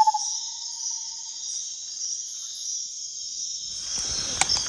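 Night insect chorus in tropical rainforest: a steady high-pitched drone of crickets and katydids. A rapid pulsed trill fades out at the very start, and near the end there is rustling with a single sharp click.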